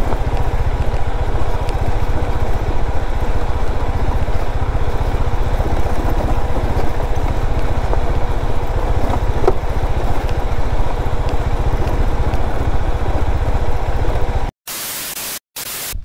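Bajaj Dominar 400's single-cylinder engine running as the motorcycle rides over a rough rocky dirt trail, with a steady rumble and noise on the helmet-camera microphone. Near the end it cuts to a short stretch of hiss with two brief dropouts.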